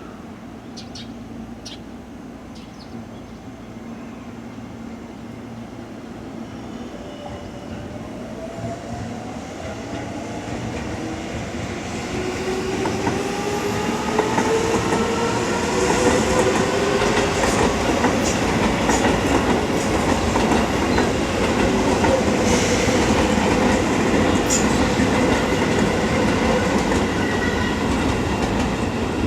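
Seibu electric commuter train drawing away from the station under power. Its motor whine climbs steadily in pitch as it gets louder over the first half, then the cars run past with loud wheel clatter.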